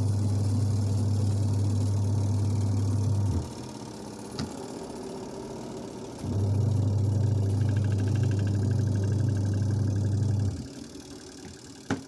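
Sharp Aqua Magic twin-tub washing machine's spin-dryer motor running with a steady mains hum. It stops about three and a half seconds in, a single click sounds in the pause, and it starts again a few seconds later before cutting off near the end. The machine is spinning again after repair of its no-spin fault.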